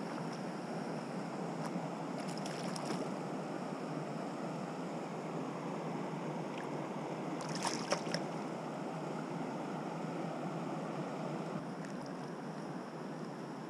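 Steady rush of stream water, with a few brief splashes as a hooked rainbow trout thrashes at the surface while it is taken by hand. The loudest splash comes about eight seconds in.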